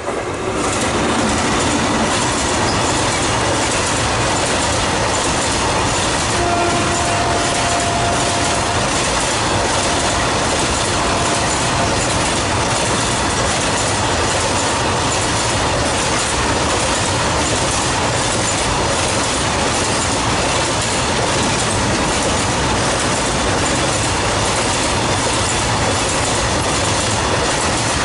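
Freight train of BCNA covered bogie wagons, hauled by a WAG5 electric locomotive, running past at speed: a steady loud rush of steel wheels on rail with a regular clickety-clack as the wagon wheels cross the rail joints.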